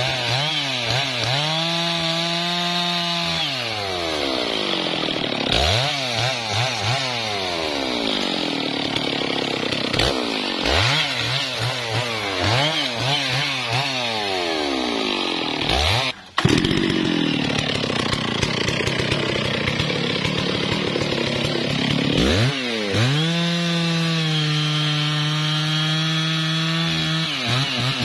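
Stihl MS660 two-stroke chainsaw revved up and held at high speed several times, falling back toward idle in between, while cutting into teak trunks.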